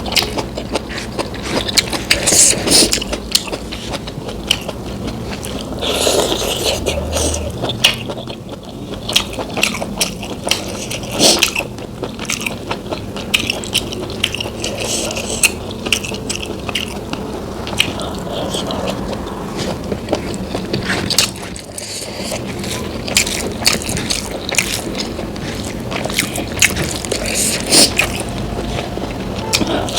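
Close-miked eating: a person biting and chewing food, with many irregular sharp clicks.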